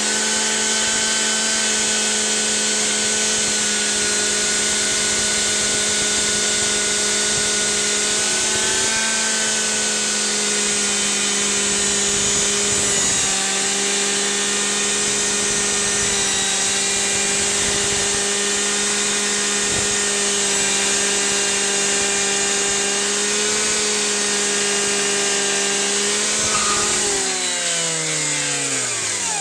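Cutters Edge gas-powered rotary rescue saw with a Bullet Blade, running at full throttle while cutting through a roof into full-thickness structural members. Its pitch holds steady with slight dips under load. Near the end the throttle is released and the engine and blade wind down.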